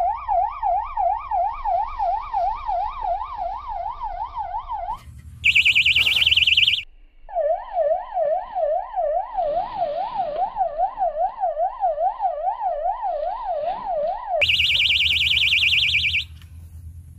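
Electronic siren-style fishing bite alarm going off: a slow rising-and-falling wail alternating with a faster, higher warble twice, the signal that a fish has taken the bait.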